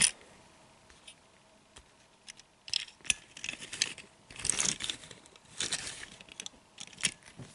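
A small 1:64 die-cast model car being handled: scattered light clicks and taps of metal and plastic with brief soft rustling, in several short bursts.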